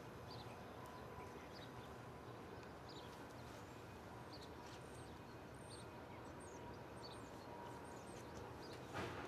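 Quiet outdoor ambience: a low steady background rumble with faint, scattered bird chirps, and a short knock near the end.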